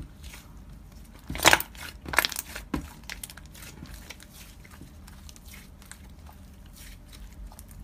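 Slime being squeezed and poked by hand, with soft crackling and clicking and a few louder crackly pops between about one and a half and three seconds in.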